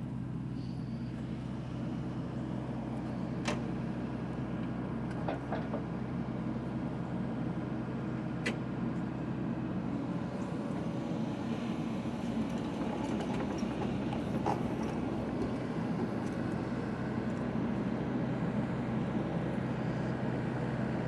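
Excavator diesel engine running steadily under load, with a few sharp metallic clanks.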